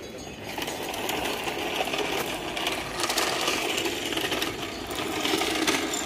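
Henry vacuum cleaner dragged by its hose over stone paving slabs, its small wheels and plastic body rolling and rattling steadily, with a few sharp clacks.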